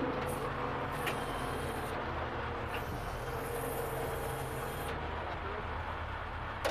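A flatbed tow truck's engine running steadily, a low hum with a faint held tone, with a couple of light clicks.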